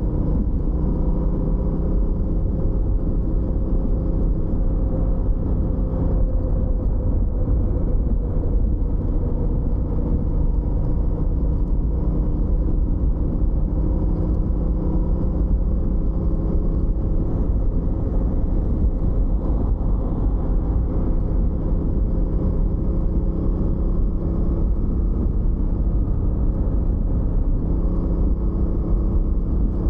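Suzuki GSX-8R's 776 cc parallel-twin engine running at a fairly steady cruising pace, with heavy low wind rush, as heard from a microphone inside the rider's backpack.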